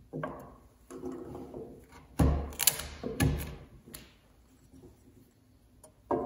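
A wooden-handled chisel pushed by hand, paring the wall of a mortise in a timber beam: a handful of separate scraping strokes into the wood, the loudest between about two and three and a half seconds in. Lighter knocks come as a steel combination square is set against the cut, one near the end.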